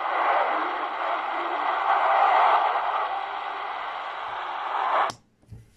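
Pocket shortwave radio's speaker, an XHDATA D-219, receiving a weak, distant shortwave broadcast: mostly steady static hiss. It cuts off with a click about five seconds in.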